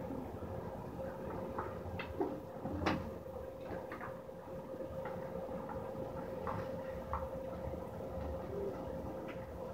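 Rabbit eating lettuce: a few scattered small crunches and clicks, the loudest about three seconds in, over a steady hum and low rumble.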